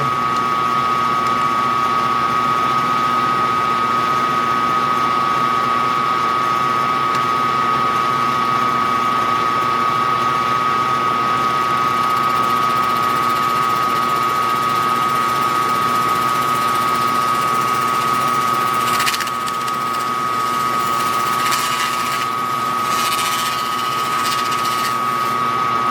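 Small metal lathe running steadily with a constant high motor whine. A few brief noises come in after about 19 seconds, as the level dips slightly.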